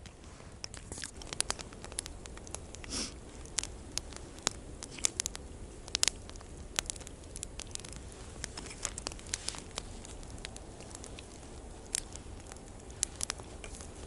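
Campfire crackling, with irregular sharp snaps and pops.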